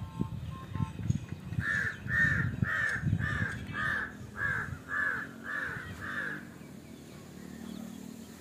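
A crow cawing, a run of nine harsh caws at about two a second that stops abruptly, with wind rumbling on the microphone.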